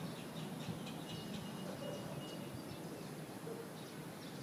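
Cat chattering: quick runs of short, high chirping sounds.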